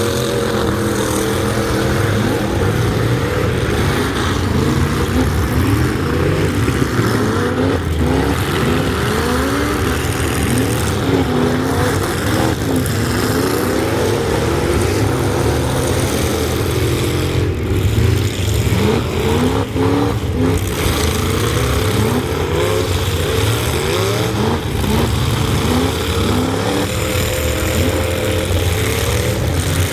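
Several truck engines running hard and revving over and over, their pitches repeatedly rising and overlapping in a continuous loud drone.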